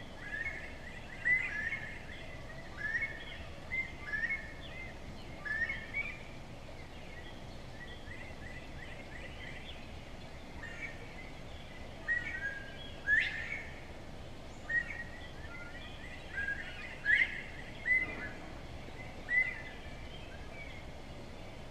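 Bobwhite quail and other birds calling: a string of short whistled calls, roughly one a second, thinning out for a few seconds in the middle, over steady background noise.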